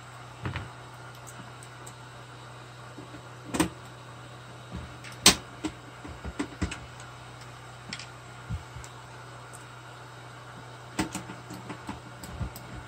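Scattered clicks and knocks of the cassette deck's casing and parts being handled during reassembly, the sharpest about five seconds in and a quick cluster soon after, over a steady low hum.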